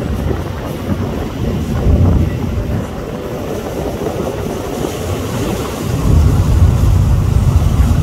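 Wind buffeting the microphone on a moving boat: a loud, irregular low rumble that grows stronger about six seconds in.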